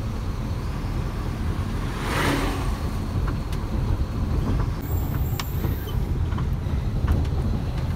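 Heavy truck driving, heard from inside the cab: a steady low rumble of engine and road, with a short hiss about two seconds in.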